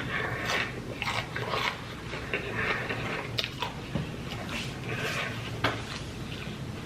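Close-miked chewing and mouth sounds of a person eating fast food, an irregular run of short smacks and crunches.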